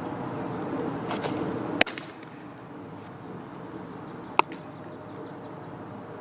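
A four-seam fastball smacking into the catcher's mitt with one sharp pop, followed about two and a half seconds later by a second sharp snap as the ball is thrown back into the pitcher's glove.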